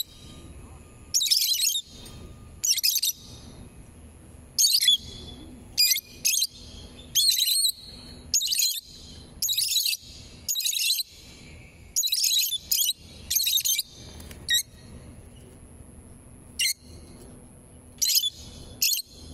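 Rosy-faced lovebirds chirping in short, shrill bursts, about one a second, growing sparser over the last few seconds.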